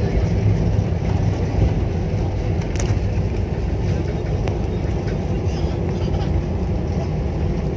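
Steady, loud cabin rumble of an Airbus A320-family airliner rolling down the runway just after touchdown, with engine and wheel noise heard through the fuselage.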